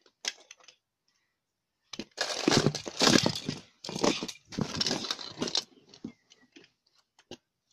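Small plastic toy figures clattering and clicking against each other as they are rummaged through by hand: a dense run of rattling about two seconds in that lasts several seconds, then a few scattered single clicks.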